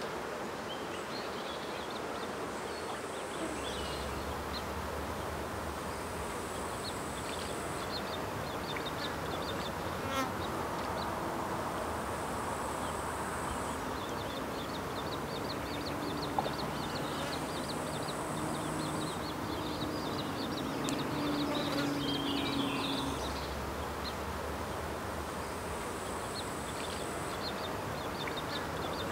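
Flying insects buzzing close by in the open air, a low buzz that swells through the middle. A high chirring comes and goes every few seconds, along with rapid trains of faint high ticks.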